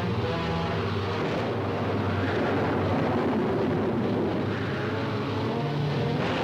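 A loud, steady rushing roar with sustained low notes beneath it, swelling in two sweeps that rise and fall about two and five seconds in, then cutting off abruptly.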